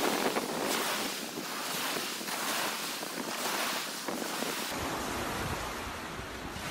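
Surf washing and breaking on a sandy shore, with wind buffeting the microphone.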